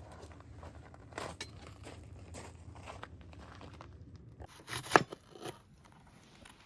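Rustling, crinkling handling noises with scattered light clicks, and one sharp click about five seconds in.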